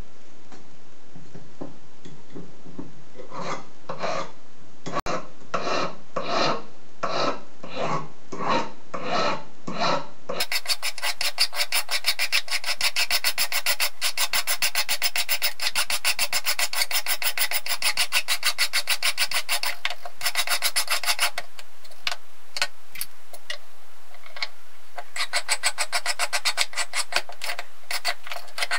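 Flat hand file rasping back and forth over a small brass part held in pliers against a wooden bench pin. The strokes come about two a second at first, then, after about ten seconds, a faster, denser run; there is a short pause with a few light ticks, and the quick strokes resume near the end.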